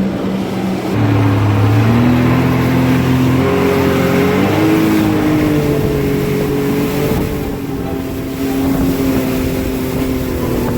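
Sea-Doo jet ski engine accelerating away and then running steadily at speed, its pitch climbing in steps over the first few seconds, with wind and water noise underneath.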